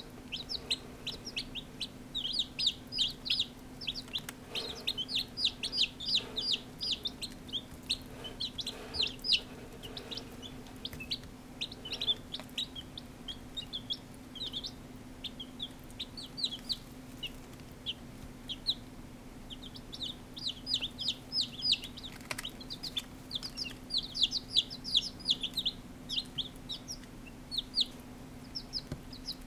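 A brood of day-old chicks peeping: many short, high, falling cheeps in quick runs, thinning out for a few seconds around the middle.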